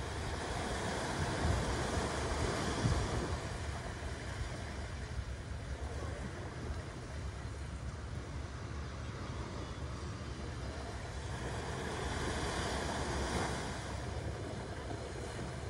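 Small sea waves breaking and washing up a sandy beach, the surf swelling about a second in and again near the end, with wind rumbling on the microphone.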